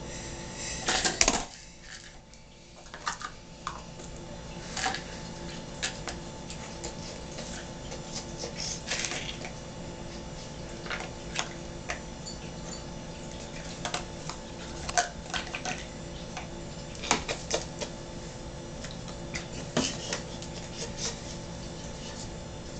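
Plastic Play-Doh tubs clicking and tapping as they are picked up and stacked on a tabletop. Light clicks are scattered throughout, with a louder clatter about a second in, over a faint steady hum.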